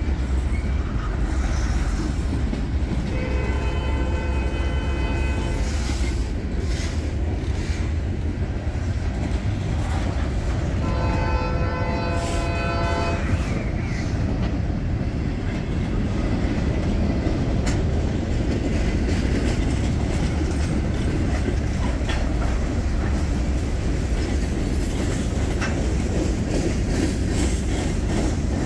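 Freight cars rolling past close by, a steady rumble with wheel clatter. A train horn sounds two long blasts, about three seconds in and again about eleven seconds in.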